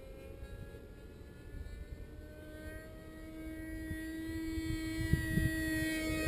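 Rossi .53 two-stroke glow engine with a tuned pipe on a model airplane in flight, a high, steady buzzing whine that grows louder and creeps slightly up in pitch as the plane approaches. Low wind rumble on the microphone underneath.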